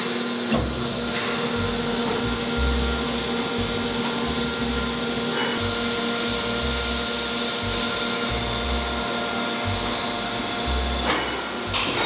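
Steady hum of plastic injection moulding machinery. Near the middle comes a rush of air lasting about a second and a half, fitting a vacuum hopper loader drawing plastic pellets into the hopper.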